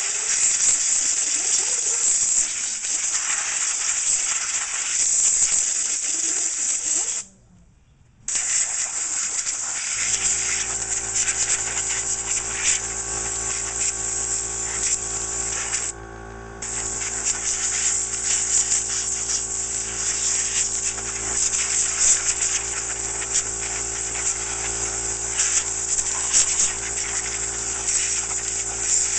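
Compressed air hissing hard from a blow gun as dust is blasted out of a desktop computer case, in long blasts with two short breaks where the trigger is let go. About ten seconds in, the air compressor's motor starts and runs steadily underneath the hiss.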